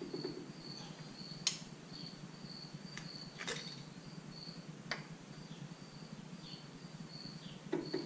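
A cricket chirping steadily, about two high chirps a second, with a few light clicks as the wheel-hub locking nut is turned on the spindle by hand, the sharpest about a second and a half in.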